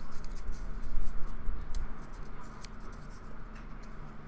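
Paper rustling with scattered faint clicks, from a paper card being torn into small pieces that are pressed into a plastic ice cube tray.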